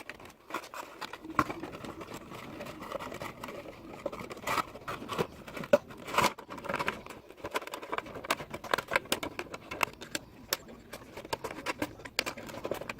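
Hands working a wire tie through the plastic slats of a tower fan and onto a plastic soda bottle: a steady run of small clicks, taps and crinkles of plastic.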